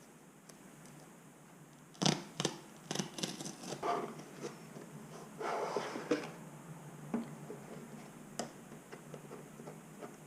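Hands handling a GoPro Hero 8 Black's packaging and parts: a run of sharp clicks, scrapes and rustles starting about two seconds in and lasting a few seconds, then a few scattered light ticks.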